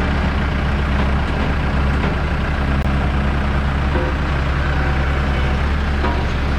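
Tractor engine running steadily at a constant speed, with a low, even hum.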